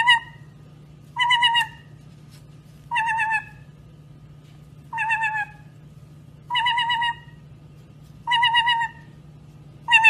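White-bellied caique giving a short, wavering, whistle-like call over and over, about six times, roughly every second and a half. A steady low hum runs underneath.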